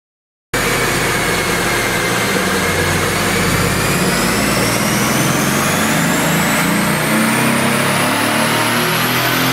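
Mercedes-AMG GT S twin-turbo 4.0-litre V8 running under load on a chassis dyno, cutting in abruptly about half a second in, with a whine that rises steadily in pitch as the car pulls up through the revs.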